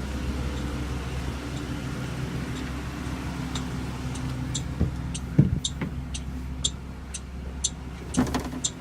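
2020 Blue Bird Vision school bus's gasoline engine idling steadily. From about midway, the hazard-light flasher ticks about twice a second, with a knock and a clatter near the end.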